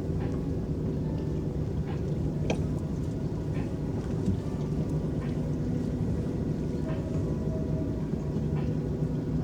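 Electric boat under way, its motor giving a steady low hum over the wash of water, with a few faint ticks.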